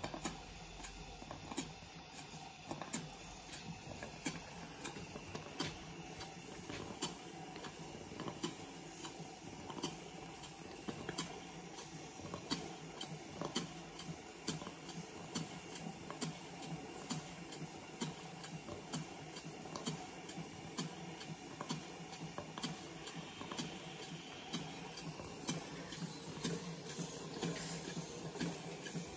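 Stuart Major model beam engine running slowly on steam, its moving parts and exhaust giving a run of light, uneven clicks over a steady hiss of steam, some of it leaking from the valve chest.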